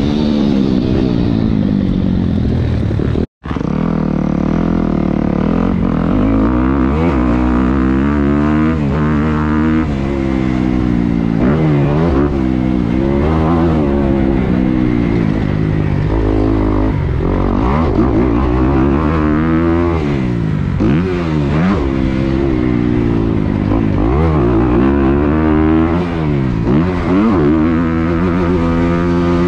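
Thumpstar 190 pit bike's single-cylinder four-stroke engine being ridden hard, revving up and dropping back over and over as the throttle opens and shuts every second or two. There is a split-second cut-out in the sound about three seconds in.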